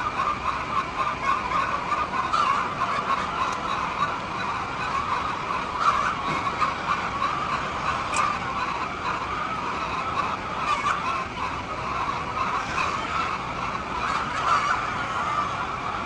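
A flock of chickens calling continuously, many overlapping clucks and squawks blending into a busy chatter.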